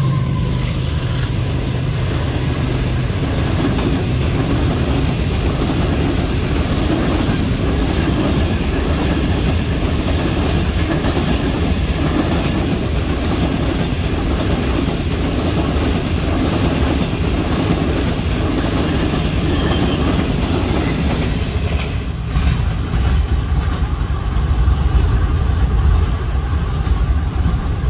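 Passenger coaches of a CRRC Tangshan-built express rushing past close by at high speed: a steady loud rumble with wheels clattering over the rail joints. Near the end the sound changes to a duller, lower rumble.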